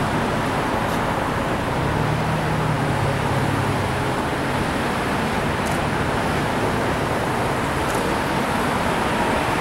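Steady road noise of a slow line of cars driving past, engines and tyres on the road surface, with a low hum swelling from about two seconds in and fading by about five seconds as one vehicle passes close.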